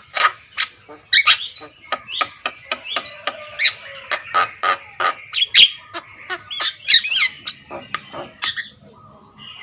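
Javan myna calling actively: a rapid, irregular string of short harsh clicks and squawks mixed with whistled notes, with a quick run of high whistles about a second in.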